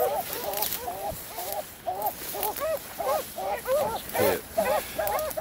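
An animal calling over and over in short yelping calls, about two to three a second, at times overlapping as if more than one animal is calling.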